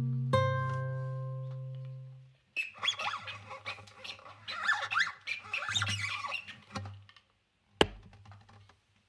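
A single plucked acoustic guitar note rings and fades away, followed by a few seconds of dense crinkling rustle full of small crackles and squeaks, like a wrapper being handled. Near the end comes one sharp tap.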